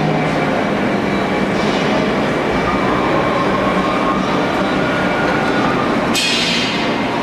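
Metalworking machine tool running steadily while cutting material off a part, with a sudden brief harsh sound about six seconds in.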